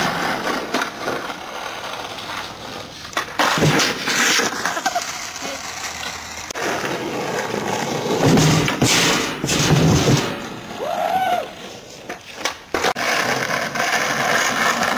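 Skateboard wheels rolling on rough asphalt, with sharp clacks of the board hitting the ledge and ground, once about three and a half seconds in and several times around eight to nine seconds in.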